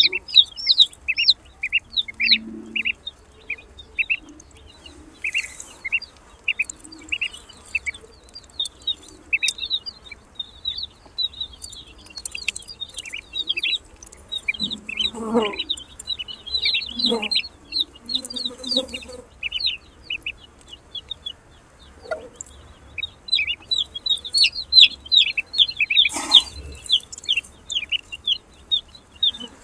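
Ducklings peeping in quick, high, repeated chirps, with a few lower, louder sounds around the middle and near the end.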